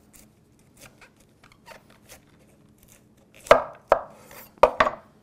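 Chef's knife cutting a thick slice through a whole head of cauliflower on a wooden cutting board. Faint crackling at first, then four sharp, crunching knocks from about three and a half seconds in as the blade goes through.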